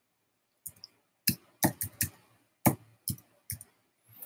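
Computer keyboard being typed on: about ten sharp key clicks at an uneven pace, as text is entered.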